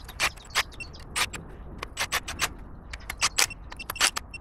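Irregular sharp metallic clicks and clinks of hand tools and parts as exhaust brake components are fitted to the engine's valvetrain, a dozen or more in quick, uneven succession.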